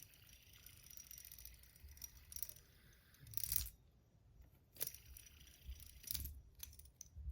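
A copper fidget spinner being handled: scattered faint metallic clicks and clinks. The longest comes about three and a half seconds in.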